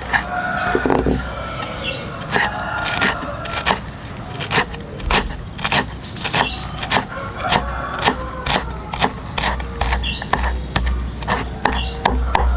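A series of sharp knocks, spaced unevenly at first and coming quicker, about three a second, from the middle on.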